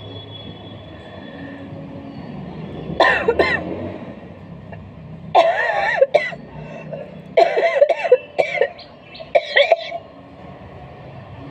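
A woman coughing in four bouts a couple of seconds apart. The cough comes from a cold with a painful sore throat.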